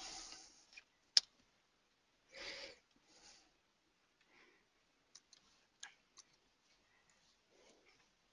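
A few sharp computer mouse clicks, the loudest about a second in and several fainter ones around five to six seconds, with a short breath close to the microphone around two and a half seconds; otherwise very quiet.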